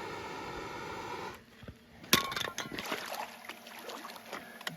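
A steady hum that cuts off about a second in, then a sharp knock followed by light clinks and small splashes of water.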